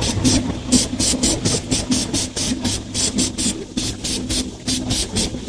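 Aerosol spray-paint can giving a rapid series of short, sharp hisses, about four a second, over a steady low hum.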